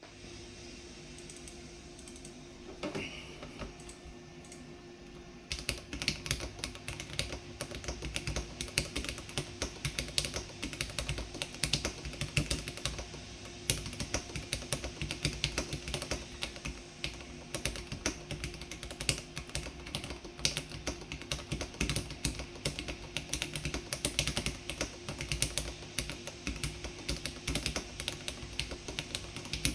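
Typing on a Noraneko42GR mechanical keyboard with Gateron Milky Yellow Pro linear switches. A few scattered keystrokes come first, then continuous fast typing starts about five and a half seconds in.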